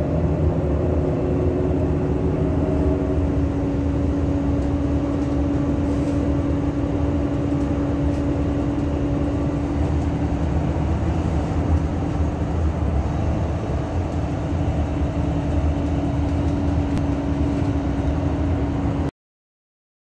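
Inside a moving bus: the engine's steady hum and road noise. The sound cuts off abruptly near the end.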